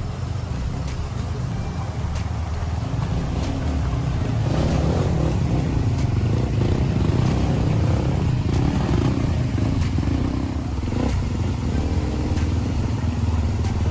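Enduro dirt-bike engine running on the move, a steady low rumble that gets somewhat louder about four seconds in.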